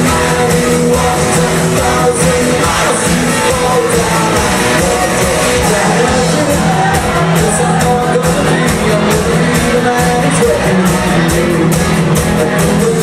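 Live covers band playing loud amplified music with a steady drum beat, some singing over it, in a large hall.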